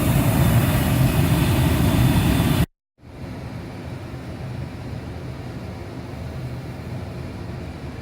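Carrier 58STA natural gas furnace blower running with a heavy low rumble and shaking, the sign of a failing blower wheel. About a third of the way in the sound cuts out. The furnace then runs far more quietly and steadily with the blower repaired.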